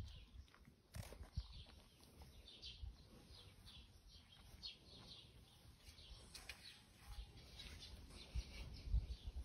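Faint birds chirping, short high calls repeating every half second or so, with a low rumble underneath.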